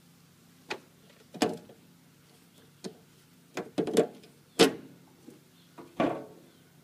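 Irregular sharp metal knocks and clunks, about ten of them, as the lathe's sheet-metal end cover over the change gears is handled and opened, over a faint low steady hum.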